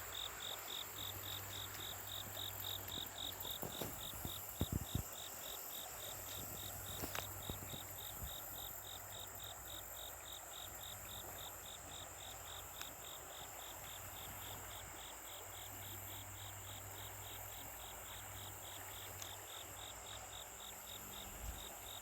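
A cricket chirping steadily in an even, rapid rhythm of about four chirps a second, over the constant rush of flowing water. A few soft knocks come about four to five seconds in.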